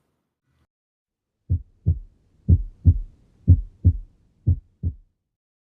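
Normal heart sounds, lub-dub: four heartbeats about one a second, each a pair of short low thumps, the first heart sound (closure of the mitral and tricuspid valves) followed closely by the second (closure of the aortic and pulmonary valves), with a shorter gap within each pair than between beats.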